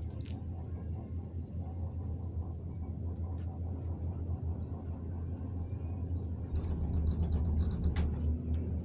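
Steady low rumble of a gondola cable car cabin travelling along its haul rope, heard from inside the cabin. It grows louder about two thirds of the way through, with a few faint clicks, as the cabin nears and passes a support tower.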